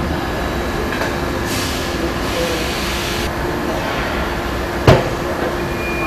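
Car assembly line running with a steady machinery hum. A hiss sounds from about a second and a half in until past three seconds, and a single sharp knock comes near the five-second mark.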